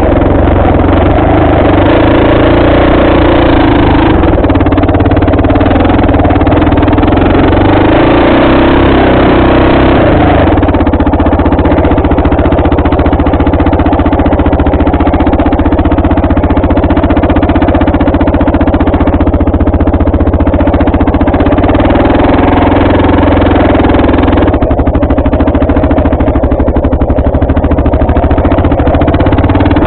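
Dirt bike engine running loud and steady as the bike is ridden, its note changing about ten seconds in and again about twenty-five seconds in.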